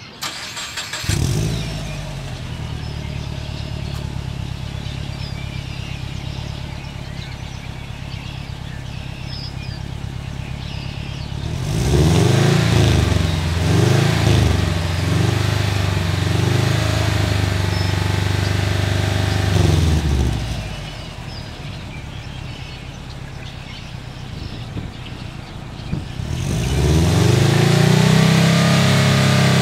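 2010 Subaru WRX's turbocharged 2.5-litre flat-four, running a Cobb Stage 2 tune through an Invidia downpipe and SPT cat-back exhaust, starting about a second in and settling to a steady idle. Around the middle it is revved in several quick blips and held at higher rpm for a few seconds before dropping back to idle, then near the end it is brought up and held at higher rpm again.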